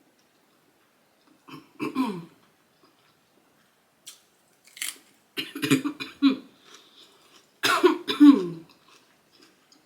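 A person eating a large mouthful makes short throat sounds in three groups, cough- or throat-clearing-like bursts with a voiced, hummed quality, about two seconds in, around the middle and near the end. Faint mouth clicks come in between.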